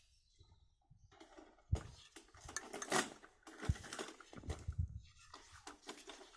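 Slime being played with by hand: irregular squishing and crackling with a few sharper pops.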